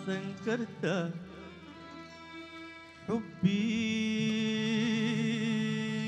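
Sudanese song playing: long held notes with a wavering vibrato, a few short notes in the first second, a softer stretch, then a new long held note from about three and a half seconds in.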